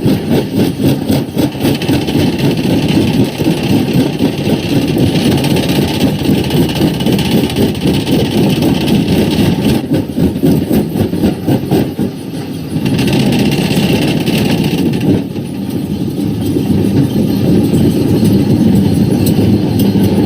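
Quarry primary rock crusher running under load: a steady heavy machine noise packed with rapid crunching knocks as rock is broken, dipping briefly twice in the second half.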